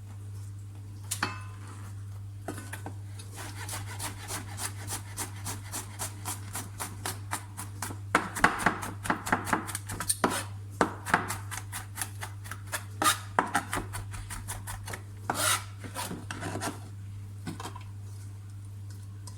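Kitchen knife chopping on a cutting board: a run of short, regular strokes that gets faster and louder around the middle, then slows to scattered cuts near the end.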